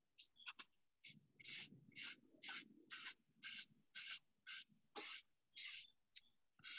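Faint, regular swishes of a paintbrush stroking back and forth across a bare wooden tray while painting it with white paint, about two strokes a second.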